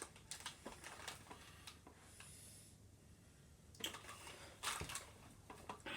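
Faint crinkling and rustling of a plastic pack of foam darts being opened by hand, with a few light clicks at first, then a quieter stretch and two stronger rustles in the second half.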